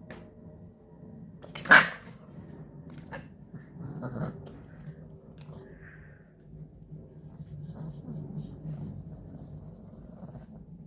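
A dog vocalising, with low sounds throughout and one short, loud outburst about two seconds in.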